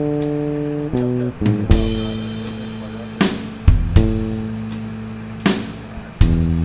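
Background music: held guitar and bass notes that change every second or two, with occasional drum hits.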